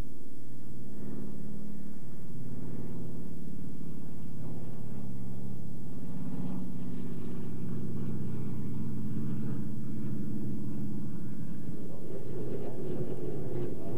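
Twin radial piston engines of a Douglas DC-3-type transport droning steadily in a low fly-past, swelling louder about halfway through as it passes overhead.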